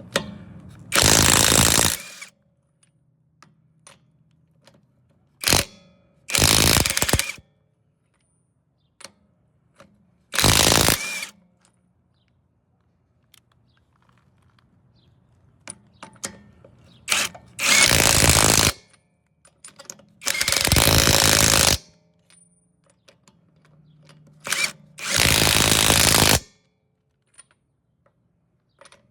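AOBEN 21V cordless impact wrench spinning freely in short trigger pulls: about six bursts of one to one and a half seconds each, with a few brief blips between them.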